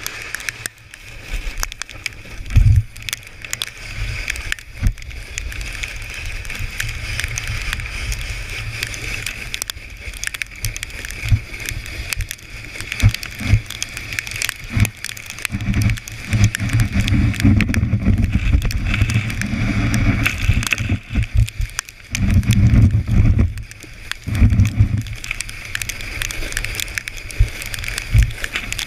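Plastic sled sliding fast over packed snow: a steady scraping hiss of the sled on the snow, with low rumbling buffets and knocks that come and go, heaviest in the middle stretch.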